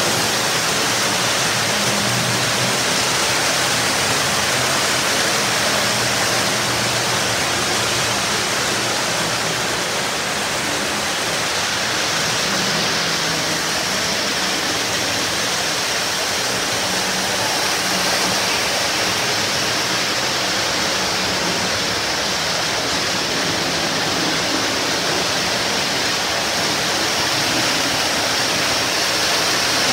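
Several early-1950s Lionel O-gauge trains running at once on three-rail track: a steady, even noise of metal wheels on the rails and the locomotives' motors, with no breaks or separate knocks.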